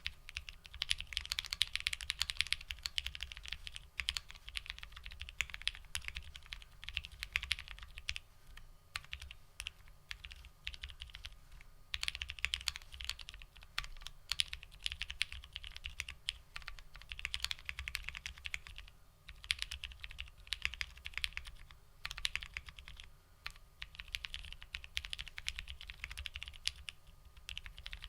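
Typing on a Bakeneko60 custom mechanical keyboard with linear frankenswitches (Moyu Black stems in Hyperglide Black housings, Gateron KS-3 springs), GMK ABS keycaps on an FR4 plate. Fast, steady runs of keystrokes broken by several short pauses.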